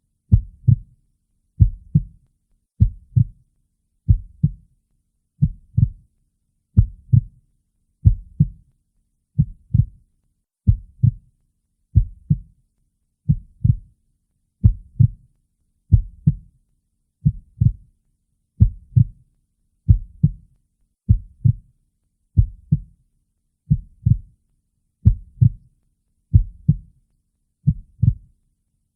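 A heartbeat, slow and steady: a double lub-dub thump about every second and a quarter, deep and low with near silence between beats.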